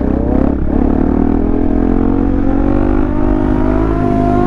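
Motorcycle engine accelerating, its note rising slowly and steadily under a long pull, with wind rush underneath.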